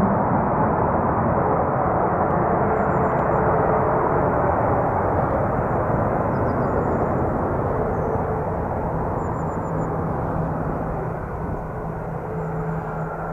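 Jet airliner engines producing a steady rush of noise that slowly fades as the aircraft moves away.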